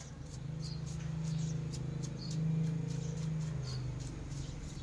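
A small electric motor hums steadily. It comes up about a third of a second in, is loudest through the middle and eases off near the end. It is running while the dust is cleaned out of the laptop's insides.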